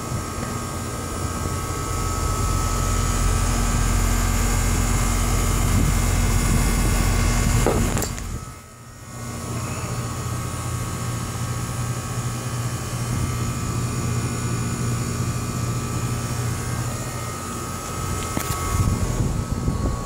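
Outdoor air-conditioner condenser unit running: a steady mechanical hum and fan drone with a constant whine. It drops away briefly about eight seconds in.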